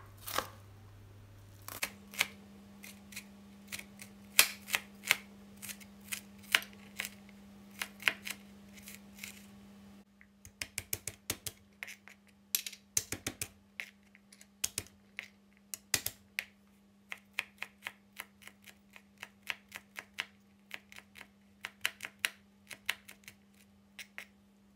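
Kitchen knife chopping onion and then mincing garlic on a plastic cutting board: a run of sharp taps, a stroke or two a second at first, then quicker from about ten seconds in.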